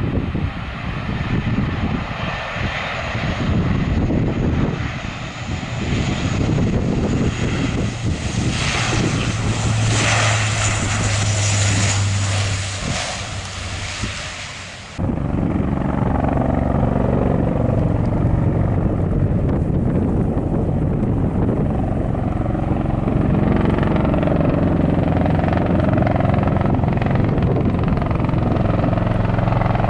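Lockheed Martin C-130J Super Hercules's four turboprops and six-blade propellers running on final approach and touchdown, with a strong low hum as it passes close. About halfway through, the sound changes abruptly to the steady low drone of a Bell Boeing V-22 Osprey's two proprotors as it comes in to land.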